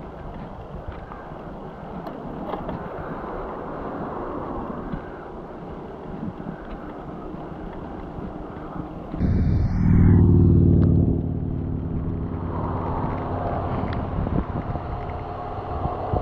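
Wind and tyre noise from a bicycle rolling on asphalt. About nine seconds in, a motor vehicle's engine comes in suddenly and loud as it passes close by, then fades after a couple of seconds.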